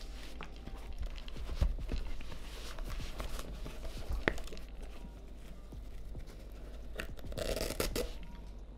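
A foam-padded cloth camera wrap rustling and scraping as it is folded and pressed around a camera on a table, with a few soft knocks and a louder burst of rustling near the end.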